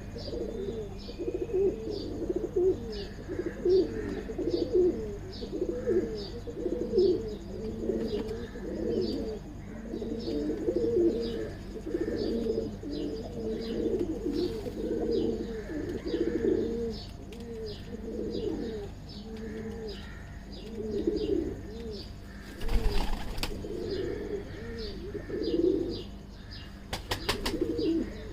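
Domestic pigeons cooing continuously in overlapping low calls, with short high chirps repeating throughout. There is a brief rustling burst about two-thirds of the way through.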